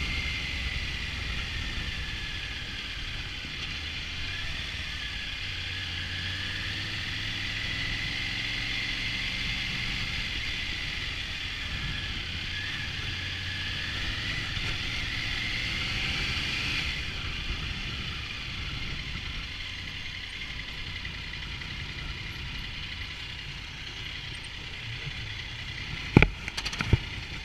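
Triumph Tiger 900 three-cylinder motorcycle running, with wind rushing over the camera's microphone; the wind noise drops away about two-thirds of the way through, leaving a lower engine rumble. A couple of sharp knocks come just before the end.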